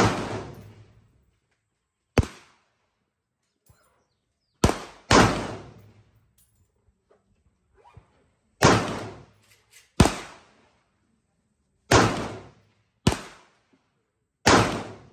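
Gunshots from an XM177E2 clone carbine with a 12.5-inch barrel and a pinned and welded moderator, firing 5.56 mm rounds. Nine unevenly spaced shots, two of them close together, each with an echo that dies away over about a second.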